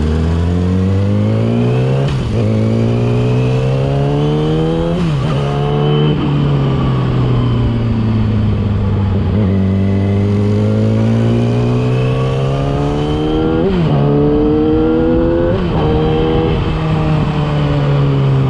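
Yamaha R6 inline-four engine through a LeoVince aftermarket exhaust, accelerating with the pitch rising through the gears; it shifts up about 2, 5 and 14 seconds in, each time the pitch drops and climbs again, with a slower dip and rise in the middle.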